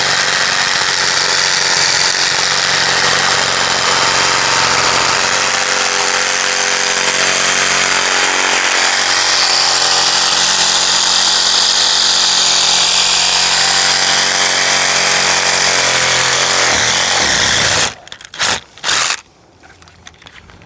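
Reciprocating saw with a long pruning blade running steadily, cutting through tree limbs, for about eighteen seconds, then slowing and stopping. Two short bursts of the saw follow soon after.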